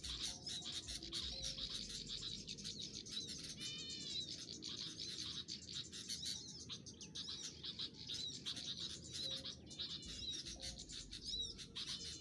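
Small songbirds chirping rapidly and continuously in high, quick notes, with a few short downward-sweeping trilled calls about four seconds in and again near the end.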